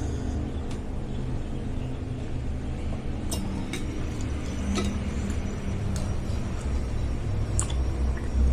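Spoon clinking against a soup bowl while eating bakso, a handful of sharp separate clinks over a steady low background hum.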